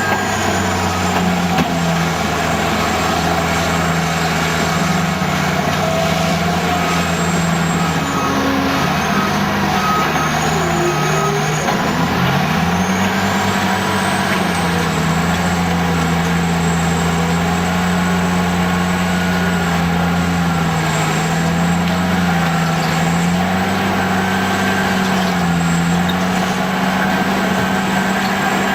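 Caterpillar D10T crawler dozer's diesel engine working under load, its note stepping up and down as the revs change, dipping about twelve seconds in and then climbing back. A thin high whine runs above it.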